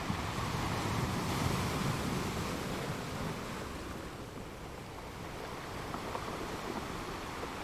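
Sea waves washing on the shore: a continuous rush of surf that swells in the first couple of seconds, eases off around the middle, then builds again.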